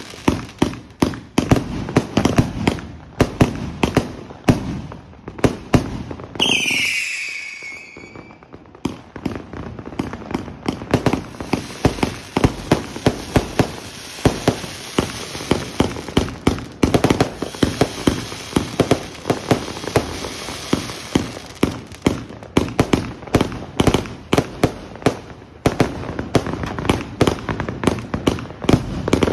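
A 200-shot, 500-gram Samurai Shodown consumer firework cake firing rapidly: a fast stream of sharp launch and salute bangs, several a second. About six and a half seconds in, the firing breaks for a couple of seconds, with a short falling tone, and then the bangs resume.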